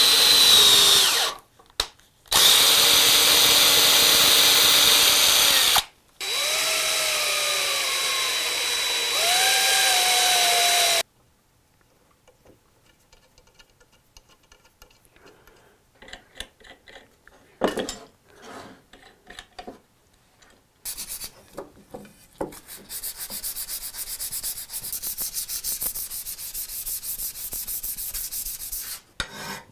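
A small power tool runs in three bursts, its whine dipping and rising as it is loaded, then stops. After a quiet stretch of light handling clicks, steady fast scratchy rubbing of abrasive work on the plane begins near the end.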